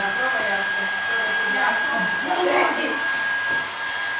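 Steady machine noise with a constant high whine, with children's voices faintly in the background.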